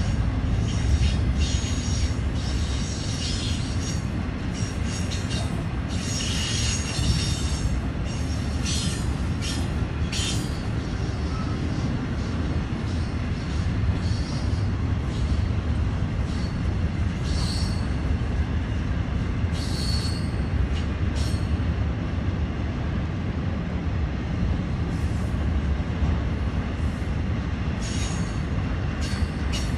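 A slow BNSF intermodal freight train's cars rolling past, with a steady low rumble of wheels on rail. Short, high wheel squeals and screeches come in clusters through the first ten seconds, again around twenty seconds in, and near the end.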